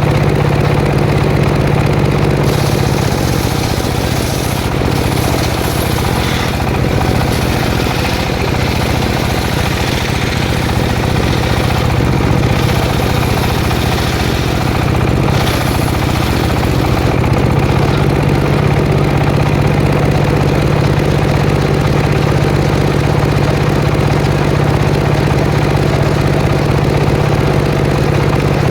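Engine-driven circular saw cutting jackfruit wood. It runs under load with extra hiss and a wavering engine note from a couple of seconds in until about halfway. After that the engine runs on steadily.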